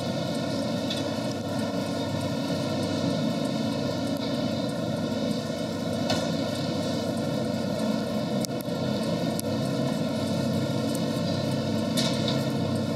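Steady background din of a busy exhibition hall, an even wash of noise with no clear voices, broken by a few short sharp clicks about six, eight and twelve seconds in.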